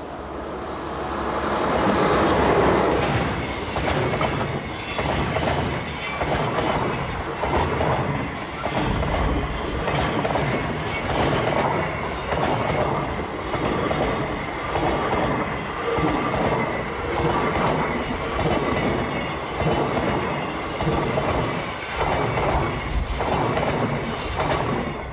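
JR Freight DF200 diesel-electric locomotive passing close by, loudest about two seconds in, followed by a long string of container wagons rolling past. The wagons' wheels clack over the rail joints in a steady rhythm that swells about every two seconds as each wagon goes by, and the sound cuts off abruptly at the end.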